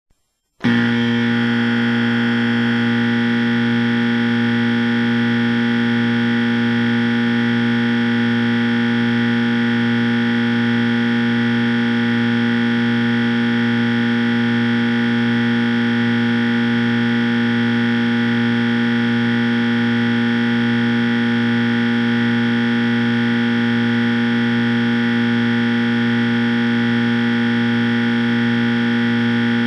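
Wrong-answer buzzer sound effect, heavily distorted and frozen into a stuck loop like a crashed computer's audio. It is a loud, harsh, unchanging buzz of many tones that starts about half a second in and shifts slightly about three seconds in.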